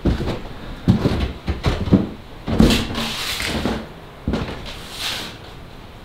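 Footsteps on a debris-strewn floor: irregular knocks, crunches and scrapes of broken material underfoot, thinning out in the last couple of seconds.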